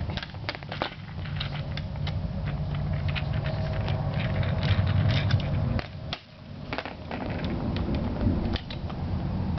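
Rapid small metallic clicks and clatter from handling an HP server rail kit and its removable mounting pins, over a low, steady rumble.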